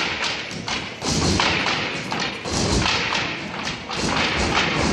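A step team stomping on a portable stage, with dancers striking long sticks against the stage floor, in a fast run of thuds and taps.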